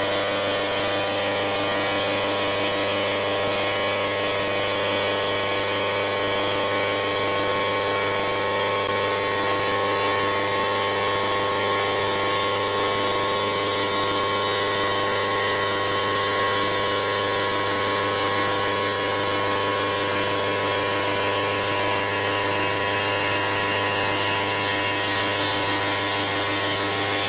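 CNC stone router spindle running steadily while machining quartz stone: a constant whine of several fixed tones over a steady hiss.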